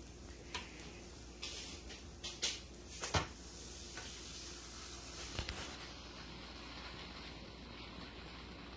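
Soft scattered taps and light knocks of sandwiches being handled and laid on an electric griddle, then a faint steady hiss.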